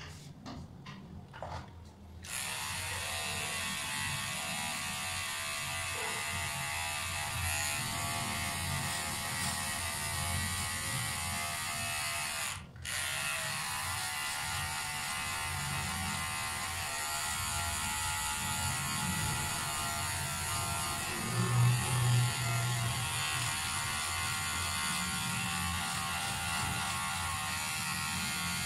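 Cordless electric hair trimmer switched on about two seconds in, after a few clicks, then buzzing steadily as it is run over the sideburns and beard. The buzz cuts out for a moment about halfway, then carries on.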